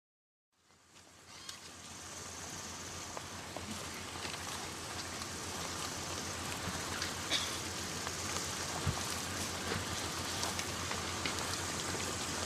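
Outdoor ambience: an even rushing noise fades in after a moment of silence and holds steady, with a low hum underneath and scattered light ticks.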